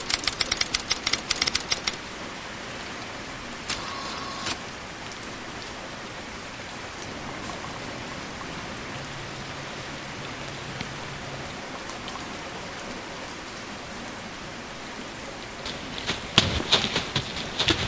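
Steady rain falling on leaves and puddles. About two seconds of rapid sharp clicks open it, with a shorter run of clicks around four seconds in. Near the end come louder irregular crunches, like footsteps through wet leaves.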